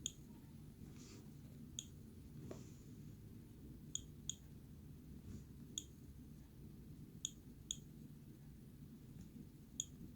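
Quiet, sharp clicks, about eight of them at irregular intervals, some in quick pairs, over a faint steady low hum.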